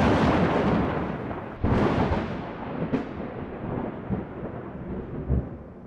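Thunder: a rolling rumble that slowly fades, broken by a fresh sharp crack about one and a half seconds in, a shorter crack about three seconds in, and a low thump near the end.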